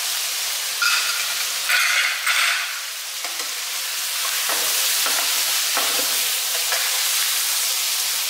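Tiger prawns sizzling in oil in a non-stick wok while a spatula stirs and turns them. The hiss flares louder about one to two and a half seconds in, and the spatula knocks and scrapes against the pan a few times around the middle.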